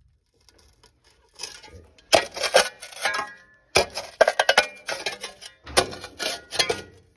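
A metal digging tool scraping and knocking against rocks and dirt in a trench, in rapid irregular clusters of clinks and scrapes, some with a brief metallic ring, starting after a near-silent first second or so.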